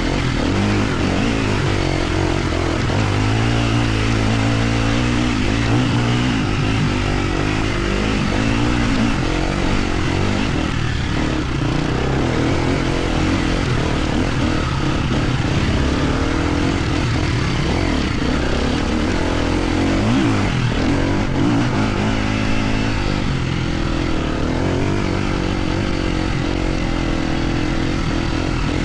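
250cc four-stroke enduro dirt bike engine running while being ridden off-road, its pitch rising and falling as the throttle is worked.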